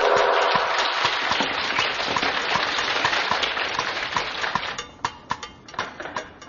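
Applause, dense at first, thinning to a few scattered claps about five seconds in and fading out.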